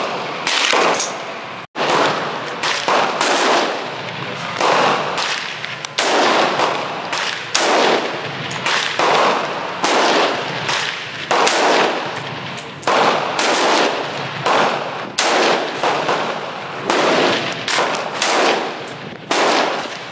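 Gunfire: a long string of single shots, about one a second, each with a short echoing tail.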